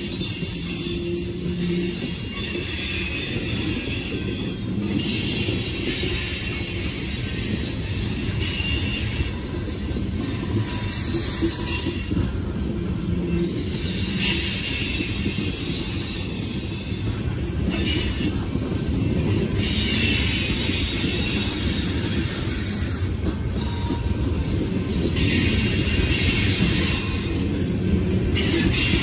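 Loaded coal cars of a freight train rolling past with a steady rumble of steel wheels on rail. High-pitched wheel squeal comes and goes every few seconds.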